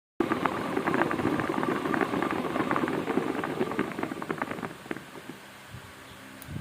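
Milling balls clattering densely inside a ball mill jar, a fast irregular rattle of many small impacts that dies away after about four and a half seconds, leaving a faint low hum.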